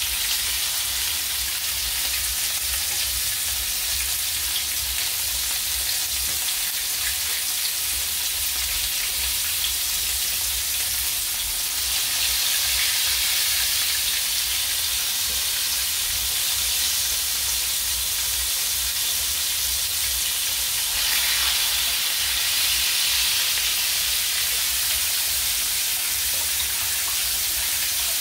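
Flour-battered tilapia pieces sizzling steadily as they shallow-fry in hot oil in a frying pan. The sizzle grows louder about twelve seconds in and again about twenty-one seconds in, as more battered pieces go into the oil.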